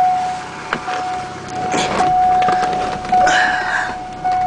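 A 1987 Ford Escort's dashboard warning chime sounds a steady high tone that restrikes about once a second. Rustling handling noise comes twice, around the middle and near the end.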